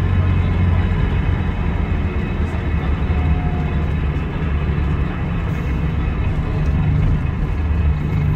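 Scania DC9 five-cylinder diesel engine of a Scania K320IB coach running steadily, its sound heavy and low-pitched.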